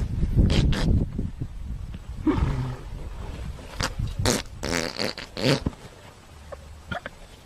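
Several short, harsh animal noises in quick succession, dying down toward the end.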